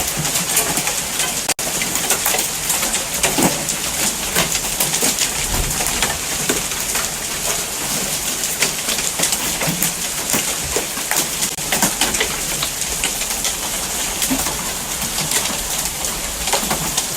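Hailstorm: large hailstones pelting down with rain, a dense, continuous clatter of countless small impacts.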